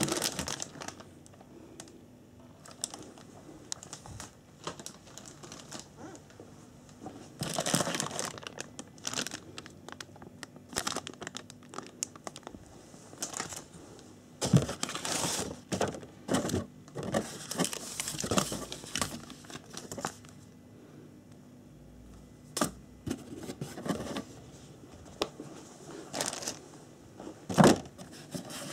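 Clear plastic bags crinkling and rustling as model kit parts are handled in a cardboard box, with a few sharp knocks of plastic parts and box, the loudest near the end.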